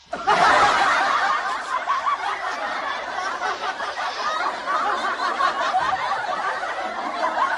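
Laughter from many voices at once, laugh-track style, starting suddenly and cutting off abruptly near the end.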